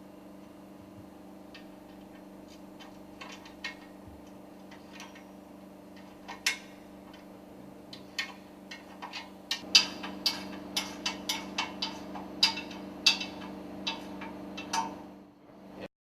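Sharp metal clinks and knocks of a work table being fitted around an engine piston rod. They are sparse at first, then come thick and loud about ten seconds in, over a steady machinery hum. The sound cuts off abruptly just before the end.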